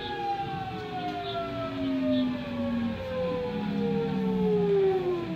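Nankai 1000 series train's VVVF inverter and traction motors whining during electric braking as it pulls into a station. The layered tones glide steadily downward in pitch as the train slows toward a stop.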